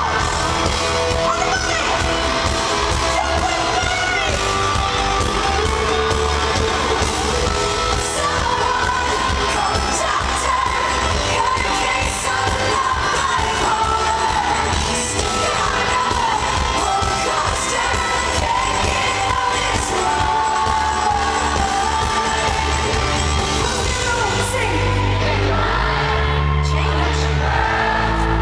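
A female singer and band performing a live pop song through a loud concert sound system, recorded from the audience.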